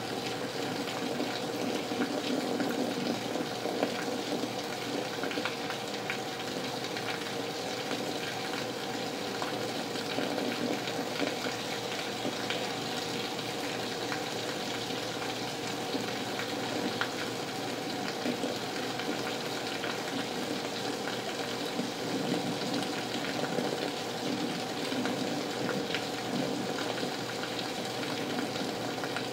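Heavy rain falling steadily in a thunderstorm, a dense even hiss of drops, with water running from a leaky gutter.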